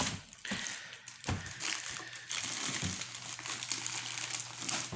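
Packaging being handled and rustled, with crinkling and small crackles throughout, as contents are taken out of the box.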